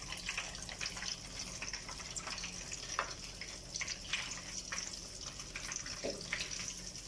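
Breadcrumb-coated chicken deep-frying in hot oil in a pan: a steady sizzle with scattered small crackles.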